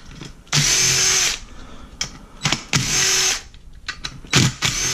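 Cordless impact driver running in three short bursts, backing the screws out of the side cover of an 80cc two-stroke motorized-bicycle engine, with light clicks of handling in between.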